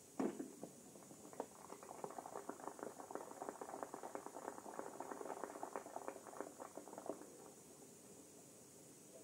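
A single shotgun shot at a skeet field just after the start, followed about a second later by spectators applauding, a dense patter of clapping that goes on for about six seconds and then fades out.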